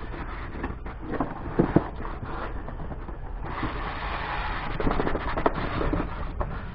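Cardboard packaging being handled: scattered light knocks and rustles as the box is opened, then from about three and a half seconds in a longer scraping as the white inner box slides out of its printed cardboard sleeve.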